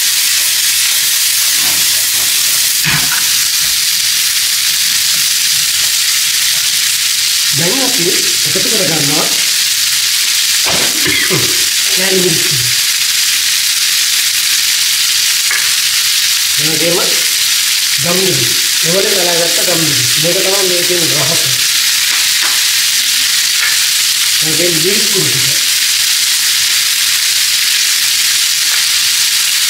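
Vegetables sizzling steadily as they fry in hot oil in a pan, stirred with a spatula now and then. A low voice is heard in short stretches over the sizzle.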